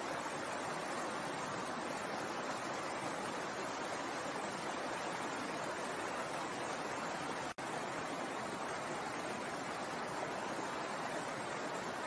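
Water running over rocks in a shallow stream, a steady rushing babble. It cuts out for an instant about seven and a half seconds in.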